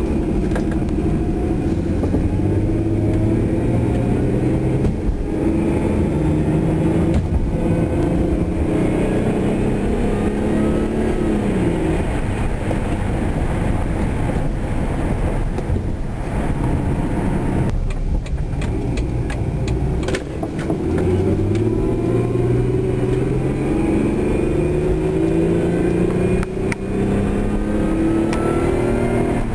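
Mazda Millenia S's supercharged 2.3-litre Miller-cycle V6 accelerating at part throttle. The engine note rises steadily, drops sharply at a gear change about twelve seconds in, and climbs again from about twenty-one seconds, with a thin rising whine above it near the end.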